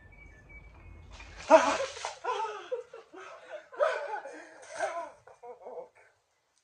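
A pitcher of cold water splashes over a man about a second and a half in, and he cries out and then laughs and yells in bursts for about four seconds. Faint bird chirps come before the splash.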